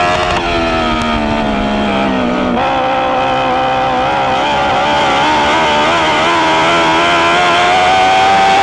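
Dwarf race car's motorcycle engine at racing revs, heard onboard: the pitch falls for about two and a half seconds as the throttle comes off, then picks up and climbs steadily back under power.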